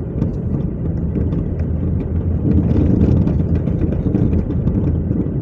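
Car driving along a road, heard from inside the cabin: a steady low rumble of engine and tyres, swelling a little about halfway through.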